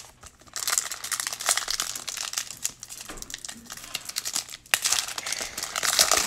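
Foil wrapper of a 2019 Donruss Optic baseball card pack crinkling and tearing as it is ripped open by hand, starting about half a second in.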